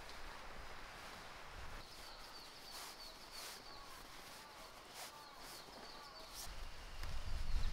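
Wild birds singing in the woods: repeated short high chirps, with a run of lower falling whistled notes in the middle. A few soft clicks, and a low rumble builds near the end.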